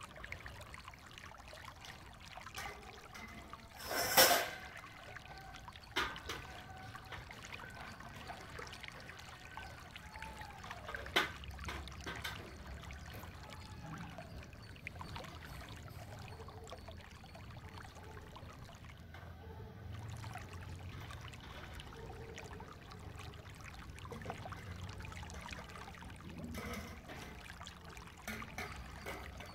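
Stainless steel utensils being washed by hand in a large steel basin of soapy water: water sloshing and trickling under scrubbing, with a loud metallic clank about four seconds in and lighter clinks of steel on steel later. Near the end water trickles as it is poured from one steel pot into another.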